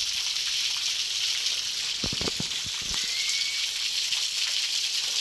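Steady hiss of water, with a couple of soft low thumps about two seconds in.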